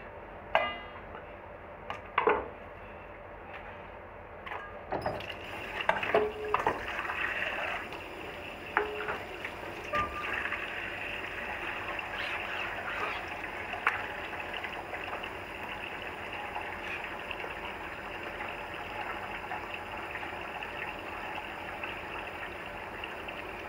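A few sharp knocks on a cutting board, then water running steadily from a tap from about five seconds in.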